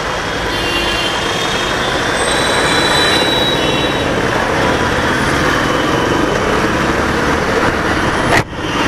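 Royal Enfield Bullet 350 motorcycle being ridden: wind rushing over the microphone, mixed with engine and road noise. The sound drops out briefly near the end.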